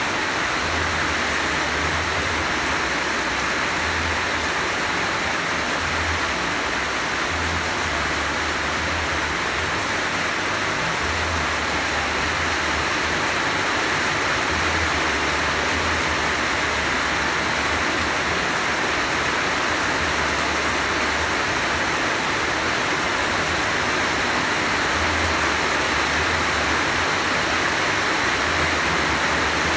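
Heavy rain falling steadily, an even rushing noise with no breaks.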